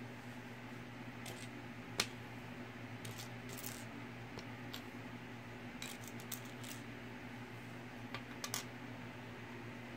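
Plastic Mega Bloks building bricks clicking and clattering as they are picked up and set down on a table: scattered sharp clicks, the loudest about two seconds in, with a few more in quick clusters later. A steady low hum runs underneath.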